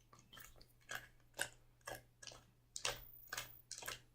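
Rubik's cube layers being turned by hand: a run of quiet plastic clicks and clacks, roughly two a second.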